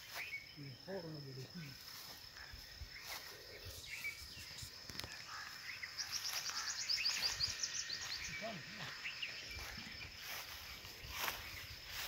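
Countryside ambience: a steady high insect buzz under scattered bird calls, with a fast high trill about six seconds in, and footsteps on a dirt path.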